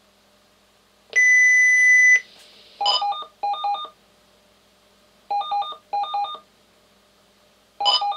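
Marine VHF radios sending and receiving a DSC (digital selective calling) group call: a steady high tone for about a second as the call goes out, then the receiving radios' group-call alert, short bursts of beeps alternating between two pitches that repeat in pairs.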